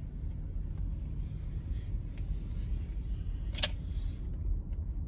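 Low, steady road and engine rumble inside a moving car's cabin, with faint scattered ticks and one sharp click about three and a half seconds in.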